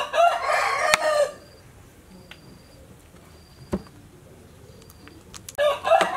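A rooster crowing twice: one crow of about a second at the start, and another beginning near the end. There is a single sharp click between them.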